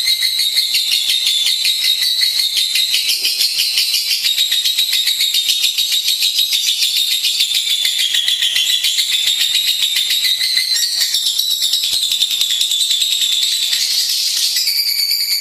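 Lovebird song: a rapid, unbroken, high-pitched chattering trill that runs on without a pause and shifts in tone near the end.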